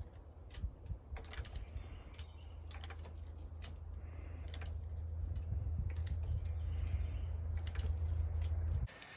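Scattered light clicks and clacks from a jointed PVC-pipe leg frame as its fittings knock and shift while a string is pulled to make it step. A low rumble grows louder underneath and cuts off abruptly shortly before the end.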